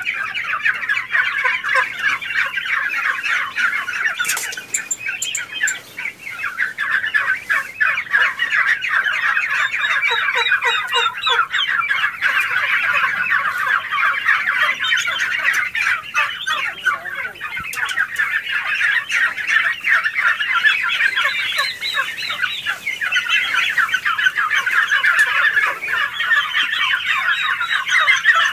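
A flock of three-month-old turkey poults calling all together: a dense, unbroken chorus of many overlapping high-pitched chirps.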